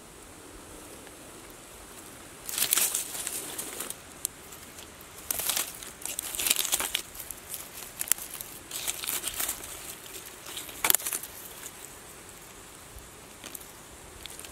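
Dry twigs, pine needles and leaf litter rustling and crackling in several short spells as a hand parts them to pick chanterelle mushrooms, with one sharper snap late on.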